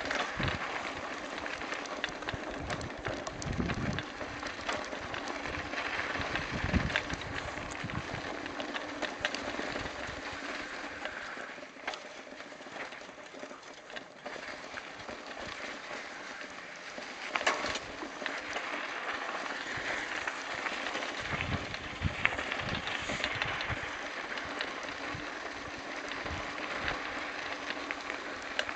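Mountain bike rolling over a gravel and sand track: a steady crunching hiss from the tyres, with low rumbles and thuds now and then as the bike and microphone are jolted or buffeted.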